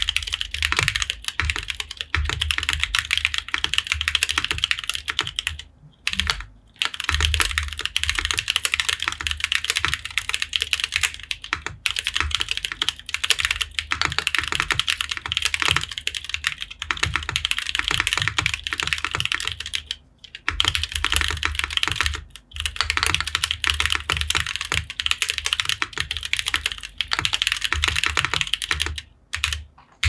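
Fast continuous typing on a tenkeyless mechanical keyboard fitted with stock Durock Sunflower POM linear switches: a dense run of key clacks over a low thump, broken by a few short pauses, about six seconds in, around twenty seconds in and near the end.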